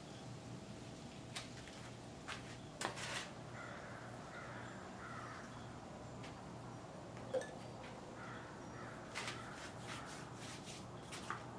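Scattered clicks and knocks, the sharpest about seven seconds in, over a steady low hum. Two spells of harsh, rough calls are also heard, one a few seconds in and one near the end.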